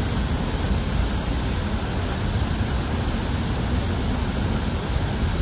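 Steady low rumble of city traffic: an even outdoor noise with no distinct events standing out.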